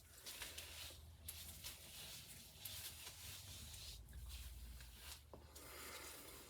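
Near silence: room tone with a low steady hum and a few faint soft clicks and rustles.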